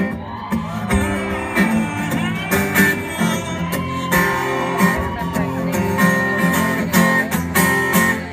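Acoustic guitar strummed in a steady rhythm, played live with no singing over it.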